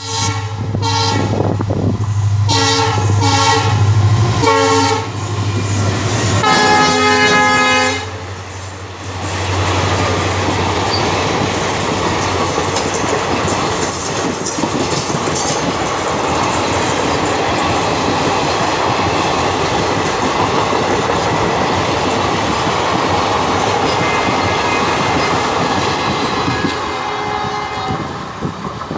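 EMD WDP4 diesel locomotive passing at speed with a steady engine drone, its horn sounding a rapid series of short blasts and then one longer blast about six seconds in. Its train of coaches follows, rushing by with wheels clattering over the rail joints, and fades near the end as it draws away.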